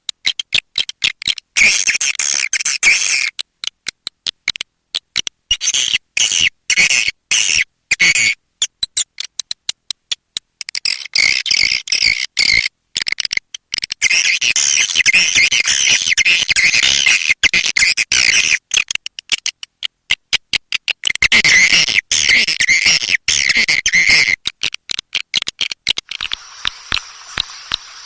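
Edible-nest swiftlet twittering, a recorded lure call of the kind played to draw swiftlets into a nesting house: dense high chirps, chopped by many short gaps. Near the end it gives way to a steadier, thinner sound.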